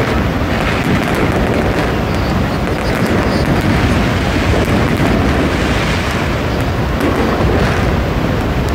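Fireworks going off in quick succession: a continuous, dense barrage of low booms blending together, with crackling throughout.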